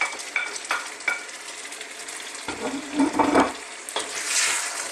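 Fried chicken pieces going into a wok of hot curry gravy and being stirred with a wooden spoon: the gravy sizzles and the spoon clicks and scrapes against the wok, with a louder clatter about three seconds in and the sizzle growing near the end.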